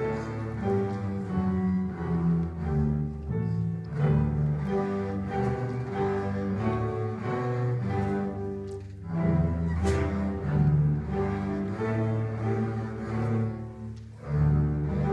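Fourth-grade student ensemble of double basses and cellos playing a bowed tune in low, changing notes, with short breaks between phrases about nine and fourteen seconds in.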